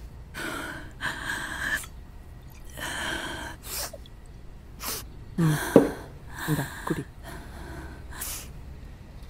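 A woman crying: a string of gasping, sniffling sobs and shaky breaths, with a couple of voiced sobs around the middle.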